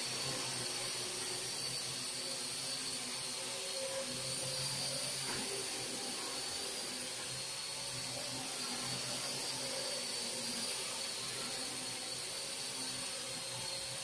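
Parrot AR Drone 2.0 quadcopter hovering: its four electric motors and rotors make a steady whirring whine whose pitch wavers slightly.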